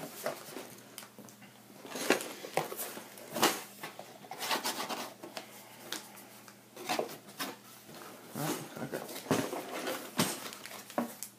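Cardboard parts box being cut open and handled: irregular scrapes, taps and rustles of cardboard and packaging.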